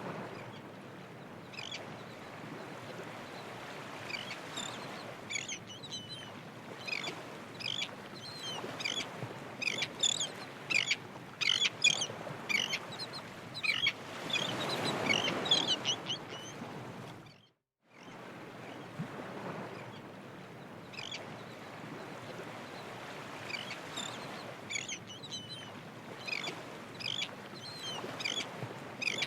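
Birds chirping and calling in quick short notes over a steady outdoor hiss, with a swell of rushing noise near the middle. The sound cuts out for a moment a little past halfway, then carries on.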